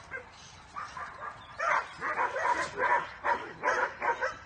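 Greyhound yelping and barking in short repeated bursts, sparse at first, then coming quickly, about three a second, from about one and a half seconds in.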